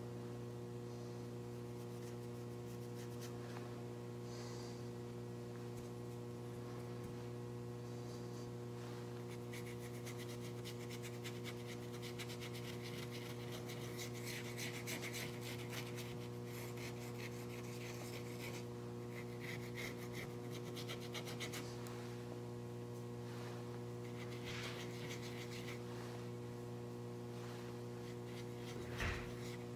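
Soft scratching and rubbing of a small paintbrush working paint into an image transferred onto cotton canvas, busiest through the middle. Under it runs a steady electrical hum, with a single knock near the end.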